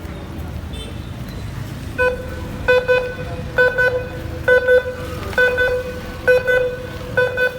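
A vehicle horn-like tone tooting in short double pulses at a steady beat of about one a second, over a continuous low vehicle rumble.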